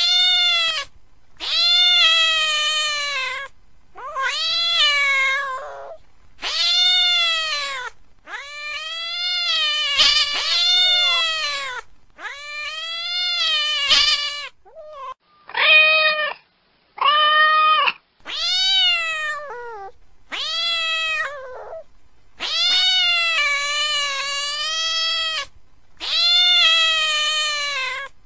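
Domestic cat meowing again and again, about a dozen long, drawn-out meows of one to three seconds each, each rising and then falling in pitch. Two shorter meows come about midway.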